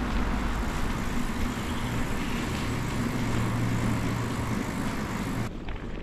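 Bicycle rolling along a dirt and gravel path and through a corrugated steel underpass: a steady tyre rumble with a low hum, which changes abruptly near the end.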